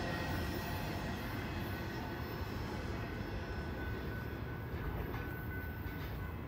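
Low rumble of a freight train receding down the line, slowly fading.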